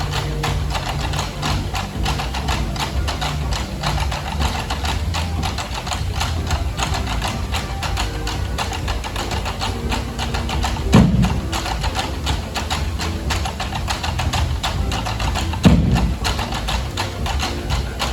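Street drumming band playing a fast, busy rhythm of many rapid hits over a steady low rumble, with two louder low booms about two-thirds of the way through and near the end.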